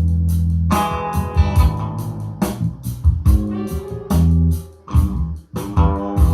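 Music with a deep bass line and plucked guitar over sharp percussive hits, played back through a powered PA monitor speaker. The music dips briefly about five seconds in.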